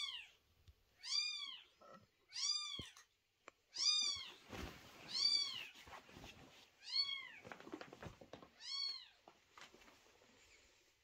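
Newborn kitten crying for its mother: about seven short, high-pitched cries, each rising then falling in pitch, at roughly one-second intervals. Faint clicks and crunches between the later cries come from the mother cat eating dry food from her bowl.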